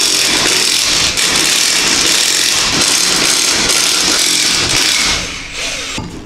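Cordless impact wrench hammering lug nuts off a car wheel, running almost without a break apart from a brief pause about a second in. It falls quieter about five seconds in and stops near the end.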